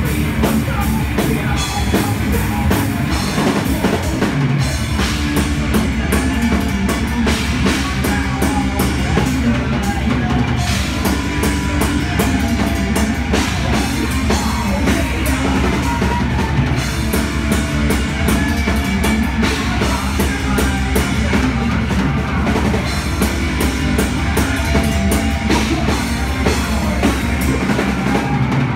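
Thrash metal band playing live: loud drum kit and electric guitars, with a rapid bass-drum beat driving the music from about four seconds in until just before the end.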